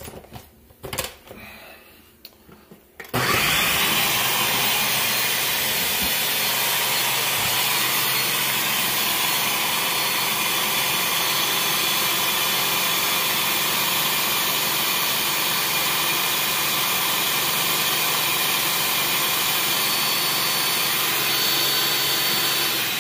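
Ninja Professional 1500-watt countertop blender puréeing tomatoes, chiles, garlic and water into salsa. After a few clicks and knocks as the jar is handled, the motor starts about three seconds in and runs steadily at full speed with a faint high whine, then is switched off right at the end and begins to spin down.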